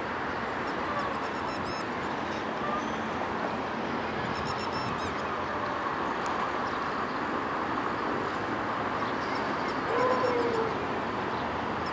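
Red-wattled lapwing calling in short bursts of rapid, sharp notes, about three times, over a steady background noise; the lapwing is calling in alarm, which the uploader takes for defence of a nest nearby.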